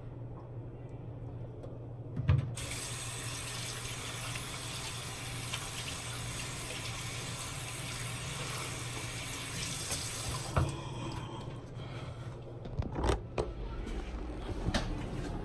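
A knock, then a tap running into a sink for about eight seconds before it is shut off abruptly; a few more knocks follow near the end.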